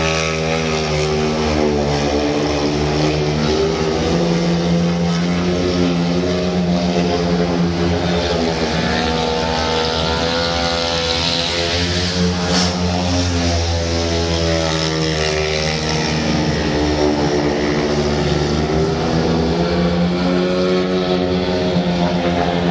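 A speedway motorcycle's single-cylinder methanol engine running loud as the bike laps the track, its pitch rising and falling with the throttle.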